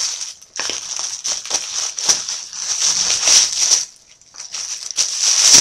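Packaging being unwrapped from a bottle: irregular bursts of crinkling and rustling as the wrapping is pulled and crumpled, with a short pause about four seconds in.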